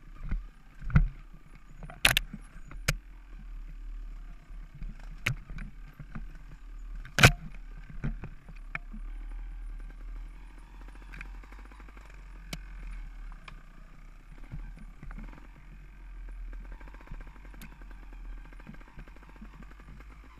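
Off-road dirt bike engine running steadily as the bike picks its way along a rocky trail, with sharp knocks and clatters from the bike going over rocks and roots, the loudest about seven seconds in.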